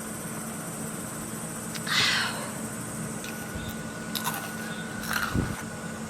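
Portable camping air conditioner running with a steady hum and a held tone. A short rush of noise comes about two seconds in, and a few light knocks follow near the end.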